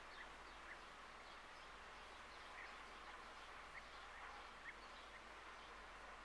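Near silence: faint outdoor ambience with scattered short bird chirps, a few seconds apart or less.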